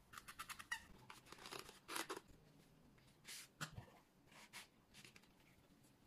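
Faint handling sounds of a stitched leather remote-control sleeve: leather rubbing and scraping against hands and the cutting mat, with a quick run of small clicks in the first second and a few short rubs after.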